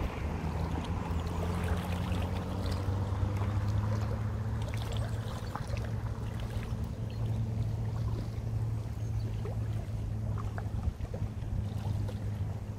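An engine's steady low drone, with a faint noisy hiss and scattered light ticks over it.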